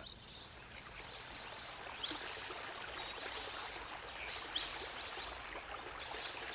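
Steady wash of flowing water, with short high chirps scattered through every second or so.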